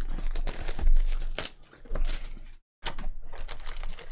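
Trading cards and their packaging being handled: rustling, sliding and light knocks, with a louder knock about a second in.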